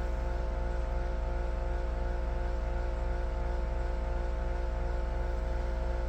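A steady mechanical hum with a strong low drone and several steady tones above it, unchanging throughout.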